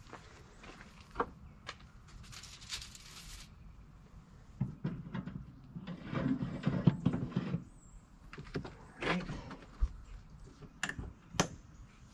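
Scrapes, rattles and knocks of trout fillets and wire racks being handled in a Masterbuilt electric smoker, loudest a little past the middle, with two sharp clicks near the end as its door is shut.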